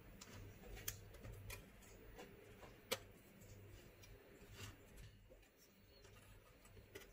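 Near silence with a low hum and a few faint, scattered clicks and taps as a graphics card's circuit board is handled and seated onto its heatsink and fan shroud. The sharpest click comes about three seconds in.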